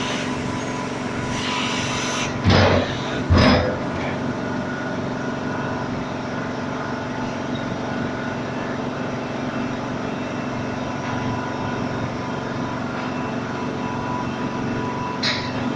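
Air compressor running steadily with a low, even hum, broken by two short loud bursts about two and a half and three and a half seconds in.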